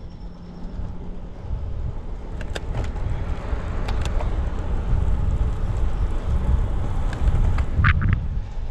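Wind rushing over the microphone and tyres rolling on wet asphalt as a road bike gathers speed downhill. It grows louder over the first few seconds and then holds, with a few sharp clicks.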